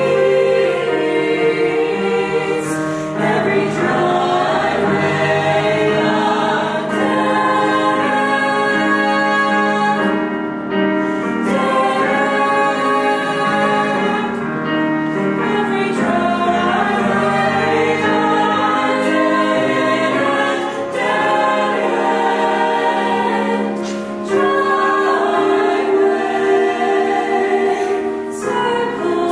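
Small mixed youth choir of male and female voices singing in parts, moving through held chords phrase by phrase.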